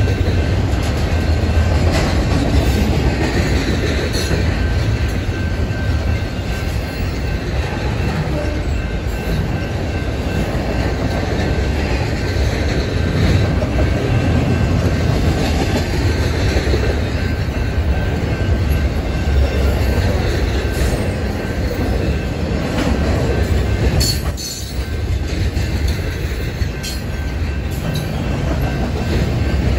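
Double-stack intermodal freight train's loaded well cars rolling past close by: a steady heavy rumble and clatter of steel wheels on rail, with a faint thin high wheel squeal over it. The noise dips briefly near the end.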